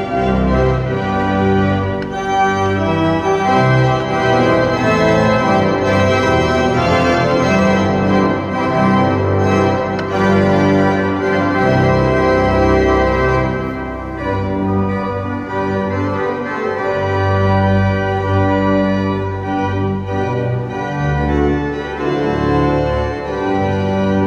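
Church organ playing a hymn: full sustained chords that change every second or so over held bass notes.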